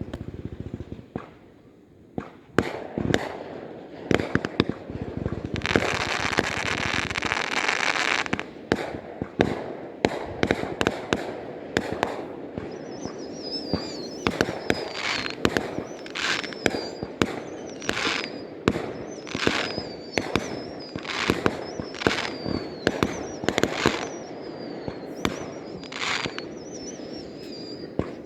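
Fireworks going off in a rapid series of bangs, with a dense stretch of crackling about six seconds in. A high, wavering whistle runs through the second half.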